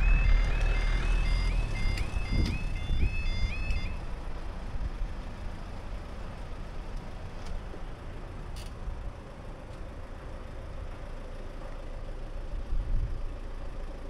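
Level crossing warning alarm: a repeating rising electronic tone, about two a second, over a low engine rumble, sounding while the barriers rise and stopping about four seconds in. Then steady road-traffic noise as a car drives over the crossing.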